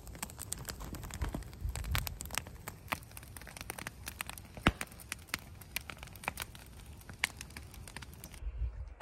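Open wood fire of logs and brush burning, crackling with irregular sharp pops and snaps.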